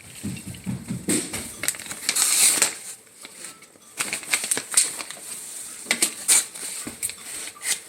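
Irregular crackling and light clicking of tortilla chips on a plate as toppings are piled onto the nachos.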